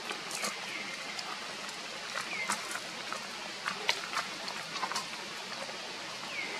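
Outdoor ambience: a steady hiss with several short, falling high chirps and a few sharp clicks scattered through it.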